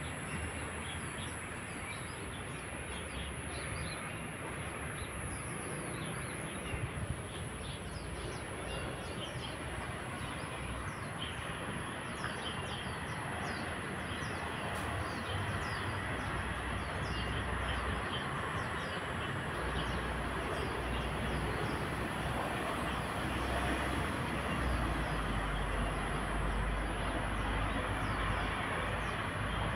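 Road traffic running steadily, swelling into a louder low rumble in the second half as heavier vehicles pass, with frequent short bird chirps and a thin steady high-pitched tone.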